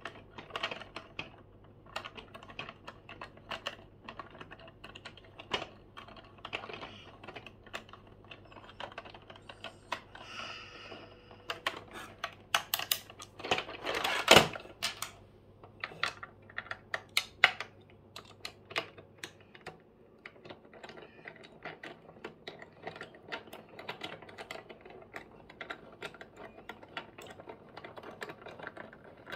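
Irregular small plastic clicks and knocks from a toy screwdriver working the screws and parts of a plastic toy loader, with one louder knock about halfway through.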